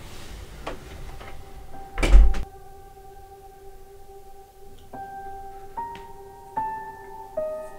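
A door shutting with a heavy thud about two seconds in, followed by a soft film score of held piano-like notes over a steady low tone, with a new note entering about once a second near the end.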